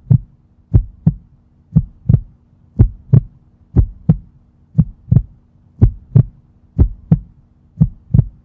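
Heartbeat sound effect: paired lub-dub thumps, about one pair a second, over a faint steady hum.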